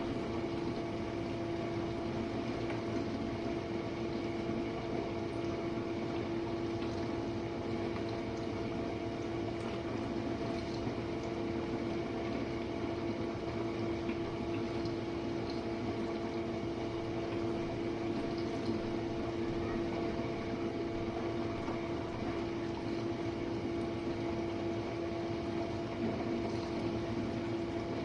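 Jenn-Air dishwasher running a quick wash cycle: a steady hum from its wash pump, with water spraying inside the tub.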